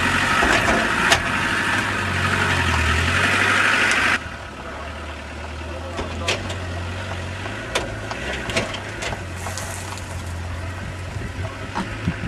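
Land Rover Discovery's engine running steadily at low revs as the 4x4 crawls over rough, rutted ground. A loud hiss lies over it for about the first four seconds and cuts off suddenly, leaving the engine quieter with a few scattered clicks.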